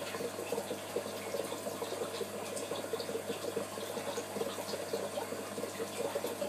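Aquarium filter running: a steady stream of water bubbling and splashing with rapid small pops, over a steady low hum.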